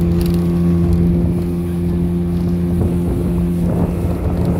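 Speedboat engine running at a steady speed under way, with a deep, even hum and wind buffeting the microphone.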